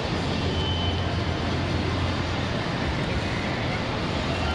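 Steady rumbling din of an indoor amusement park hall, a low hum under an even wash of noise, with a faint brief high tone about half a second in.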